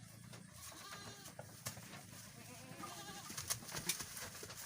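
Goats bleating, a couple of wavering calls, with two sharp knocks near the end.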